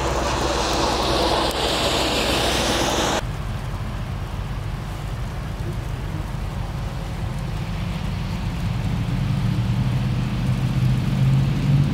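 Highway traffic passing on a wet road: a loud tyre hiss with a sweeping rise and fall that cuts off suddenly about three seconds in, followed by a low engine drone that grows louder toward the end.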